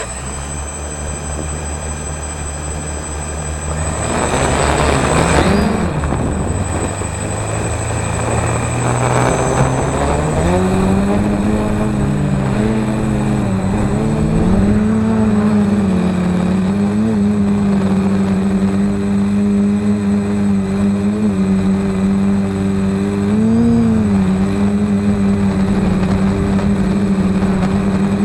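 Hexacopter's six brushless motors (2226, 1400 Kv) with 7x4.5 propellers running in flight, a steady loud propeller hum. Its pitch steps up about ten seconds in and then rises and falls with throttle changes.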